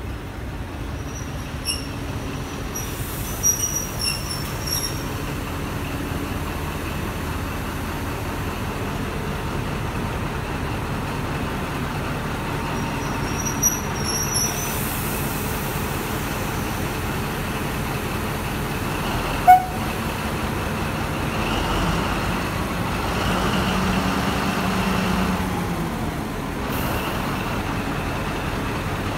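Diesel locomotive engine running as the locomotive rolls slowly past at close range. A few short high squeaks and clicks come in the first seconds and again midway, then a sharp clank. The engine note swells louder for a few seconds near the end.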